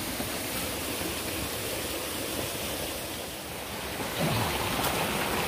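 Steady rushing of flowing forest stream water, dipping a little about three and a half seconds in and picking up again.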